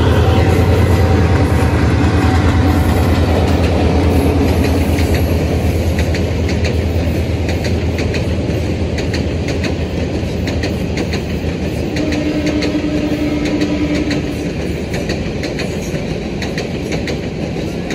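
Diesel-electric passenger train passing and drawing away: the locomotive's low engine rumble fades over the first half, leaving the coaches' wheels clacking over rail joints in a steady rhythm.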